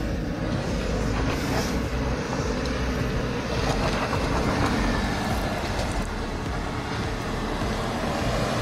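Land Rover Discovery 3 engine running steadily at low revs as the 4x4 crawls over a rocky off-road track.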